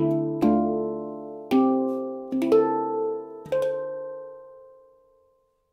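Baopan handpan in D Amara played with the fingers: a handful of single ringing notes, some struck in quick pairs, about a second apart. The final notes ring on and slowly die away.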